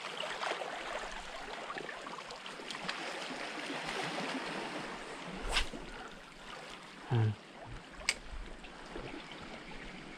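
Water washing against shoreline rocks, a steady hiss. Two sharp clicks stand out, about five and a half and eight seconds in, with a short low thud-like sound just before the second.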